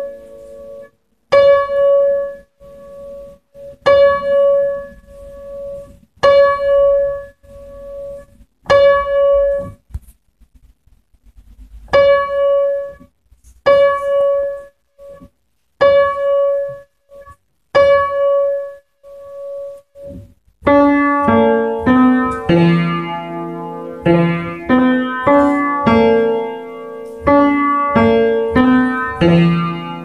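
Piano played by hand. For about the first twenty seconds one high note is struck about every two and a half seconds and left to ring and die away, like a tolling bell. From about two-thirds of the way in, a busier passage of chords and moving notes follows, with lower notes underneath.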